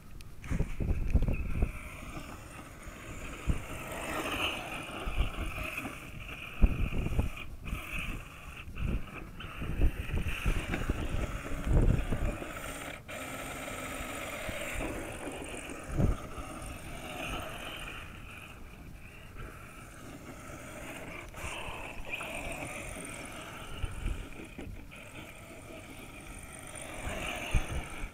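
Radio-controlled scale crawler truck's electric motor and gears whining, the pitch wavering up and down as it is driven, with gusts of wind buffeting the microphone.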